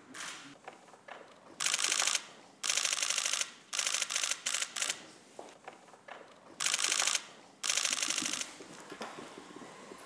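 Still-camera shutters firing in rapid continuous bursts, about half a dozen bursts of up to a second each with short pauses between them.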